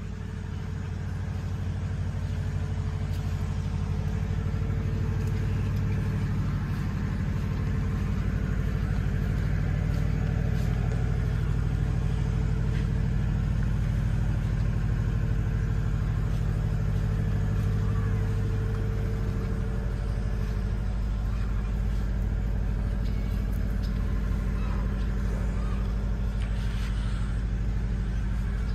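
A steady low mechanical hum, like a motor running, with a faint held tone above it, growing louder over the first couple of seconds and then holding even.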